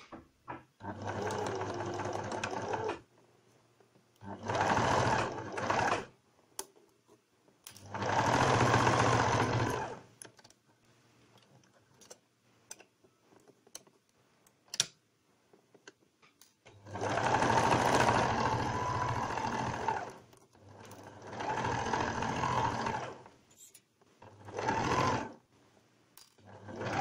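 Domestic electric sewing machine stitching a pinned seam through two layers of jersey fabric in short runs. It starts and stops seven times, each run lasting one to three seconds, with a longer pause about halfway through and small clicks of handling between runs.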